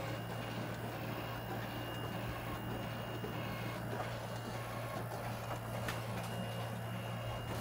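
HP ThinkJet 2225A inkjet printer printing a graph line by line: the carriage and paper-feed mechanism run steadily over a constant hum, with a few light clicks as the fanfold paper steps forward.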